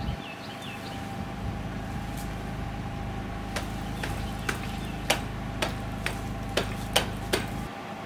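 About ten sharp, irregular knocks and clicks in the second half, from rope, pulley and canopy-frame work, over a steady low hum.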